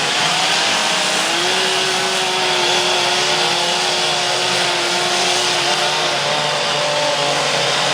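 Several two-stroke chainsaws running at once, carving wood. Their engine pitches rise and fall as they are revved, and one saw holds a steady pitch for several seconds.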